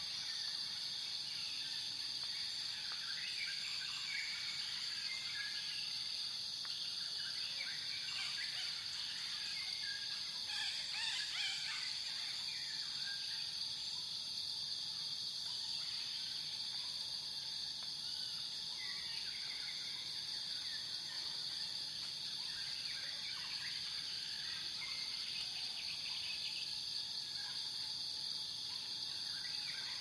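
Steady high-pitched insect-like drone with many small scattered chirps and squeaks, a little busier about ten seconds in.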